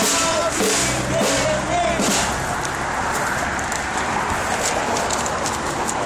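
Crowd voices with rhythmic drum-like hits over them for the first couple of seconds, then an even murmur of many voices.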